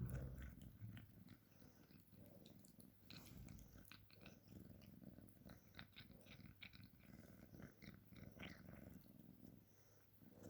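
A kitten purring faintly and steadily, with small clicks of its teeth nibbling on fingers.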